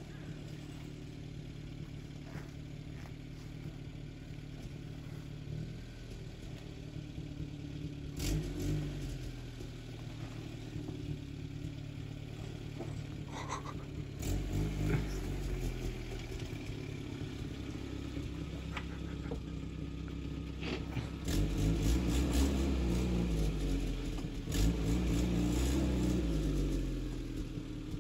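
Land Rover Series III's 2.25-litre four-cylinder petrol engine labouring through deep mud, revving up and down in several pushes and growing louder as it comes closer, with a few knocks and rattles.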